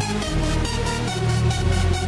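Electronic music with a steady beat and heavy bass.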